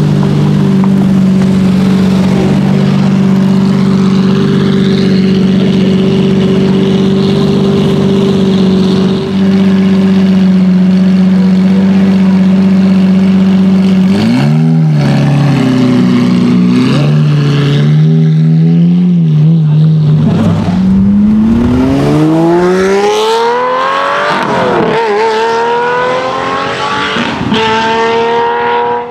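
Lamborghini Murciélago LP670-4 SV's V12 through a Reiter exhaust, idling steadily, then revved a few times about halfway through. Near the end it accelerates hard, rising in pitch through two gear changes.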